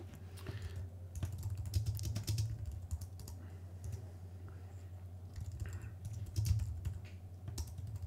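Typing on a computer keyboard: bursts of quick key clicks with short pauses, over a steady low hum.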